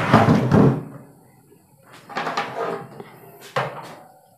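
Handling knocks from a small metal-and-plastic quartz room heater being lifted and set down on a wooden tabletop. There is a loud knock with rustling at the start, more knocks about two seconds in and a sharp click after three seconds.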